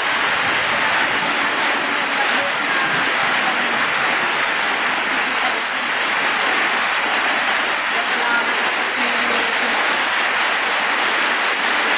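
Heavy rain falling steadily on a flooded street, a constant loud hiss of rain hitting standing water.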